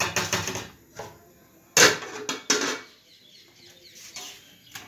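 Steel kitchen pots, lids and utensils clattering and clanking at the stove: a rattle at the start, a sharp loud clank just under two seconds in, another clank soon after, and a few softer knocks.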